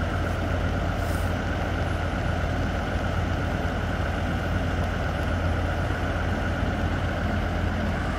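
A heavy truck's diesel engine idling steadily, with an even low drone that never revs up or down.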